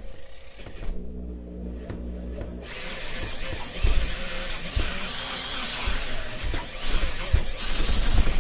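Handheld electric orbital polisher running with its pad pressed against a glass door pane, rubbing toothpaste over scratched glass under heavy friction. There is a steady hum about a second in, then a dense rubbing whir with scattered low thumps through the second half.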